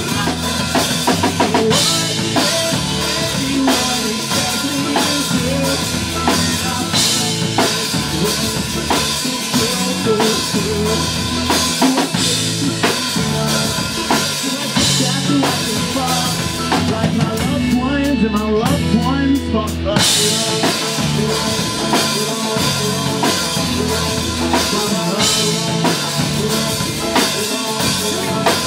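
Live pop-punk band playing an instrumental passage, the drum kit driving it with kick, snare and cymbals. About two-thirds of the way through, the cymbals drop out for a couple of seconds before the full band crashes back in.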